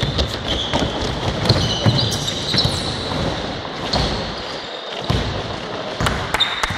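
A basketball bouncing repeatedly on a hardwood gym floor during play, with brief high squeaks of sneakers as players run and cut.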